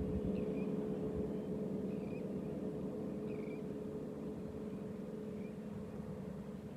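A steady low engine hum, slowly fading away, with short high chirping calls about once a second over it.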